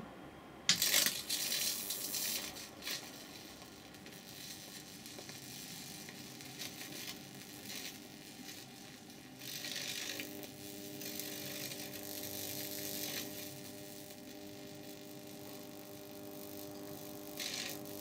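High-voltage arc crackling through a leaf across a bug zapper grid fed about 4,000 volts by two microwave oven transformers wired in opposite phase. Loud snaps come about a second in, then irregular crackling as the leaf burns, with a steady hum joining about ten seconds in.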